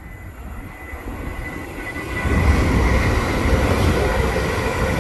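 A Greater Anglia passenger train passing through the station: rumble and wheel-on-rail noise build up and get much louder about two seconds in, then hold steady.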